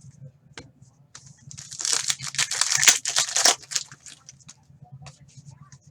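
A foil trading-card pack being torn open and its wrapper crinkled, a dense crackling rustle from about a second and a half in until about four seconds, with a few small ticks of card handling before and after.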